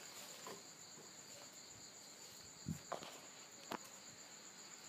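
Steady high-pitched chirring of night insects, crickets, with a few faint knocks and clicks about three seconds in.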